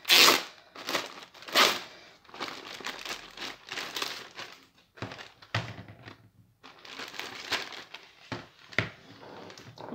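Thin clear plastic bag crinkling and rustling in repeated bursts as a pair of slippers is pulled out of it by hand, loudest in the first two seconds. A few short knocks come near the end.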